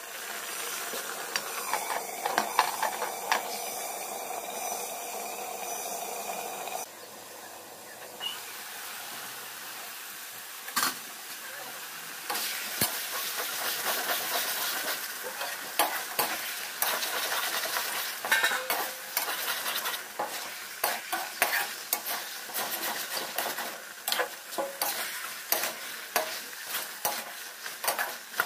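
Thick mutton curry sizzling in a metal pan as a metal spatula stirs and scrapes through it. The spatula knocks and clicks against the pan often, most of all in the second half.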